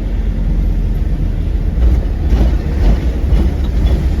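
Steady low rumble of a moving vehicle: engine and road noise, with no horn sounding.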